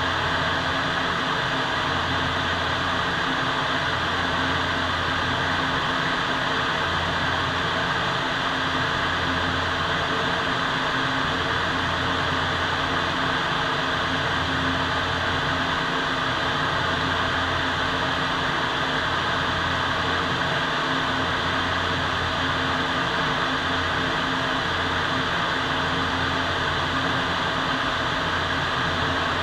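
Paint spray booth's ventilation fans running: a steady rush of moving air with a low hum underneath.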